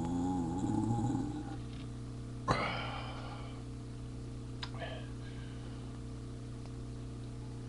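A man's long, low belch with a wavering pitch that trails off about a second and a half in. Two short, sharp vocal sounds follow, the louder one about two and a half seconds in and a shorter one near five seconds, over a steady electrical hum.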